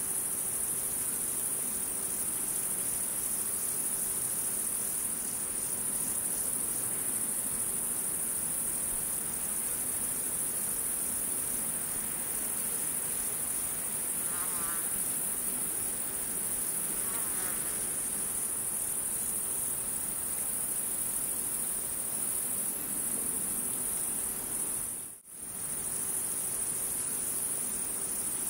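Steady, high-pitched insect chirring, briefly cut off near the end.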